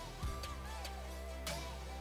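Background music: a melody over a steady low bass, with a sharp hit about every second and a half.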